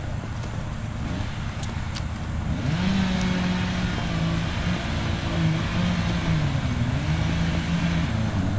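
A motor vehicle engine running, getting louder from about three seconds in, its pitch mostly steady with small dips, over a low rumble.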